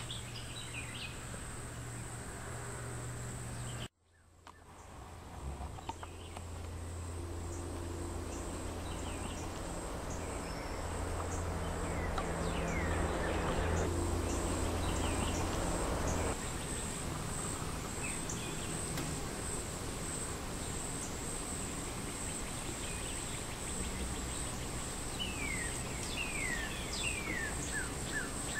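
A steady, high-pitched insect chorus with scattered short falling bird chirps, including a quick run of them near the end. The sound drops out briefly about four seconds in.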